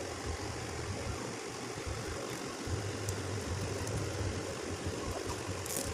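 A steady low mechanical hum under a constant hiss, like a motor running, with a short high rustle just before the end.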